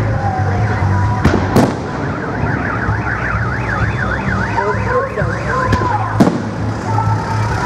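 Fireworks shells bursting with sharp bangs, two close together about a second and a half in and two more around six seconds. Between them a siren-like tone warbles rapidly up and down, about four times a second, for roughly three seconds.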